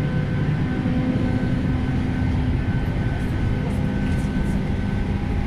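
Steady low rumble with faint steady whining tones from a parked Boeing 737-800 during boarding: its auxiliary power unit and air-conditioning running.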